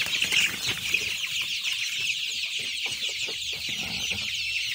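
A large flock of young KUB chickens, about 500 birds a little over three weeks old, cheeping all together: a dense, continuous chorus of many overlapping high, short, falling peeps.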